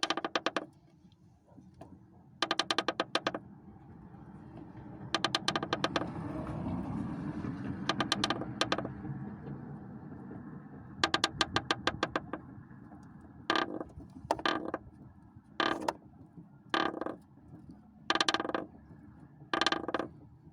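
Cracked body metal at a Lada Priora's front right strut tower creaking in about a dozen short rattling bursts as the crack flexes open and shut: the source of the knocking and grinding from that corner of the car. A steady noise swells in the middle.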